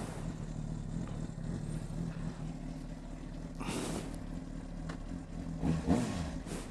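Honda CBR600RR inline-four engine idling steadily, with a brief rushing noise a little past halfway.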